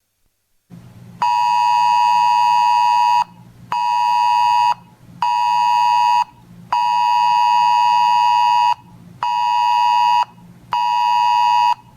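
Weather radio alert tone: a loud beep near 1 kHz sounding in a long-short-short pattern, twice over. The long beeps last about two seconds and the short ones about one second, over a faint low hum. It signals an incoming weather alert.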